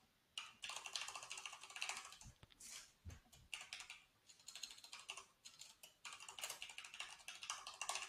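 Faint computer keyboard typing, in short runs of keystrokes with brief pauses between them.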